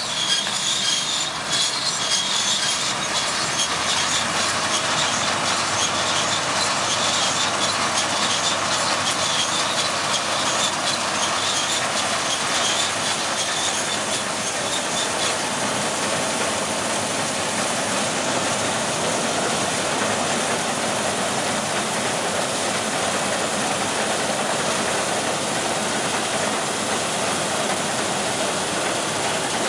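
NS 920 combine harvester running steadily as it cuts and threshes standing crop: continuous engine and machinery noise, with a higher rattle that fades about halfway through.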